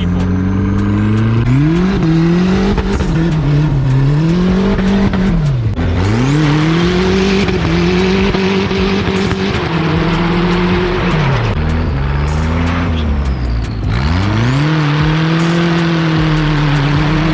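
Turbocharged Nissan Hardbody pickup's engine held at high revs as its tyres spin through donuts on a welded differential, with a steady hiss of tyre noise beneath. The revs waver up and down and drop sharply twice, about six and fourteen seconds in, each time climbing back up.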